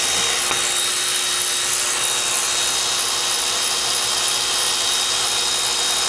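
Cordless ratchet running continuously, a steady whirring with a thin high whine, as it turns out a bolt at the starter-generator of a gas golf cart engine.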